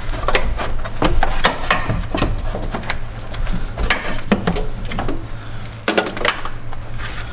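An aftermarket radiator being worked down into place and lined up behind its plastic fan shroud: irregular knocks, clicks and rubbing of hard plastic and metal.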